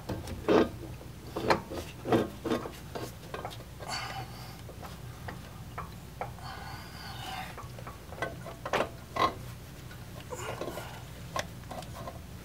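A CV axle shaft being pushed and worked into the transmission so its snap ring will seat: scattered sharp knocks and clicks, several in the first two seconds and two more near nine seconds, with short stretches of rubbing and scraping between them.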